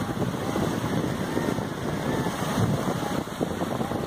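Wind buffeting the microphone: a steady, uneven rushing rumble with no clear tones.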